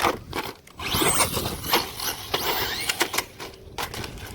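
Brushless motor and drivetrain of a two-wheel-drive Traxxas Monster Slash RC truck running on a street, whining and whirring with an uneven throttle.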